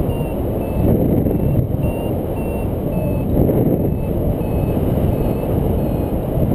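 Wind rushing over the microphone in flight, with a paragliding variometer beeping in short high pips about twice a second, its pitch shifting a little from pip to pip: the climb tone that signals rising air.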